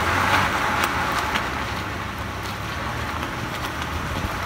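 A car rolling along a wet road, heard from outside the open window beside the front wheel: a steady hiss of the tyre on the wet pavement, mixed with road and wind noise.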